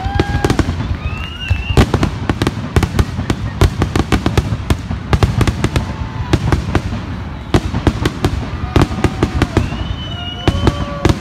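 Aerial fireworks display: a dense, irregular barrage of shell bursts and crackling bangs, several a second, over a low rumble, with a few short high-pitched tones sounding among them.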